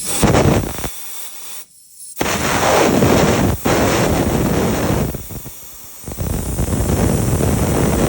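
Compressed air from an air hose blowing into the fill port of a Wacker Neuson EZ38 excavator's final drive, hissing loudly in several long blasts with a short break about two seconds in, to purge the old gear oil out the drain hole.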